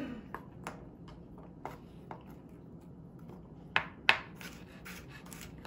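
Kitchen knife cutting carrots into matchsticks on a cutting board: scattered light knocks of the blade, with two louder ones a little under four seconds in.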